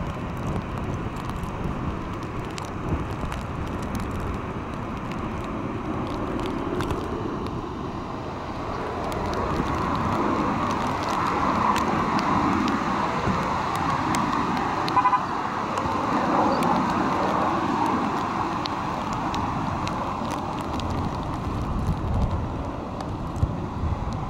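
Steady outdoor rush of wind and breaking surf that swells in the middle, with a short horn-like beep about fifteen seconds in.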